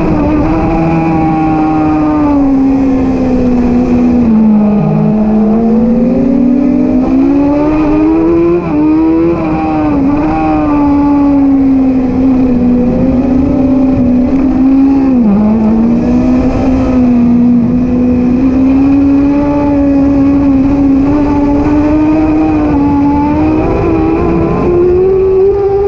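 Middleweight superbike's engine at racing revs, heard from the bike's own onboard camera. Its pitch sags and climbs with the throttle and gear changes through the corners, dipping sharply twice, then rises steadily near the end as the bike accelerates.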